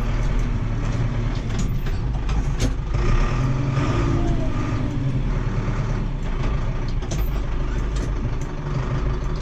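Tractor diesel engine running steadily, heard from inside the cab, with a few short clicks and knocks.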